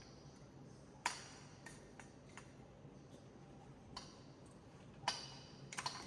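Light, scattered plastic clicks and taps of breathing-circuit tubing and connectors being handled and hung on the ventilator, the sharpest about a second in and about five seconds in, with a quick run of clicks near the end.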